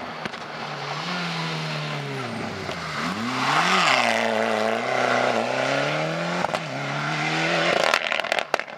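Rally car engine at high revs, falling in pitch as it slows for a bend, with one sharp throttle blip on a downshift about four seconds in, then pulling again with further gear changes; a hiss of spray from tyres on wet tarmac rises with it, and a burst of crackles comes near the end.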